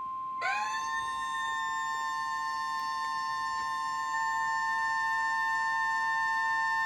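Emergency Alert System warning tone announcing a severe thunderstorm warning. A steady high alert tone is joined about half a second in by a second, buzzier tone just below it, which slides briefly up into pitch. The two then sound together, loud and unbroken.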